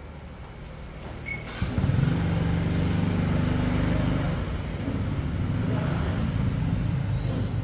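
A motorcycle engine comes on with a click about a second and a half in and keeps running steadily.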